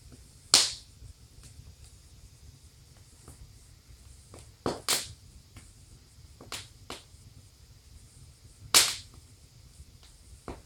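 Wood fire burning in a fireplace, crackling with sharp, irregular pops over a faint hiss. The loudest pops come just after the start and near the end.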